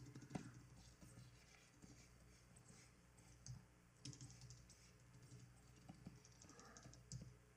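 Near silence: faint, scattered clicks of computer keyboard keys over a low steady hum.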